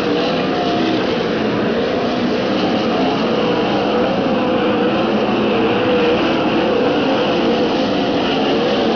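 A field of winged dirt-track sprint cars racing, their V8 engines running at high revs together. Several engine notes overlap and waver up and down without a break.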